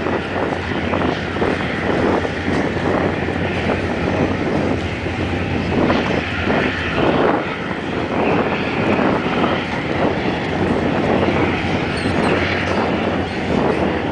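A boat engine's steady low drone, mixed with gusty wind buffeting the microphone.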